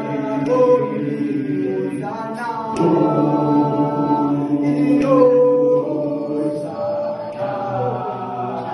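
A group of voices singing a cappella in harmony, holding long chords that move to new notes about three and five seconds in.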